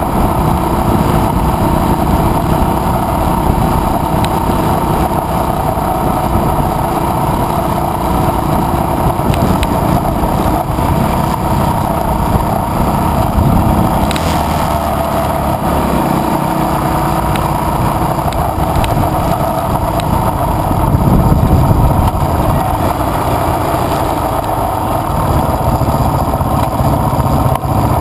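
Adventure motorcycle running steadily at cruising speed on a gravel road, with wind and road noise.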